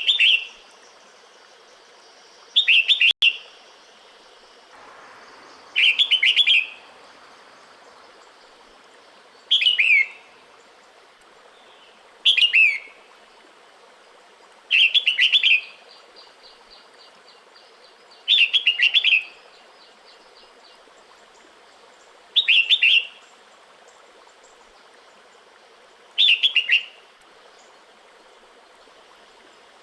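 Female red-whiskered bulbul giving short, bright calls that fall in pitch, repeated nine times about every three to four seconds: its breeding-season call to a male.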